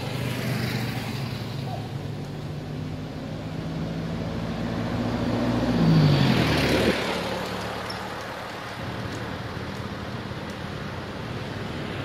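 A motor vehicle passing on a road: its engine grows louder, is loudest about six seconds in with its pitch dropping as it goes by, then fades away.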